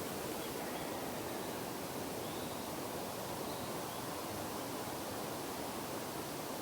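Steady, even outdoor background hiss with no distinct bird calls.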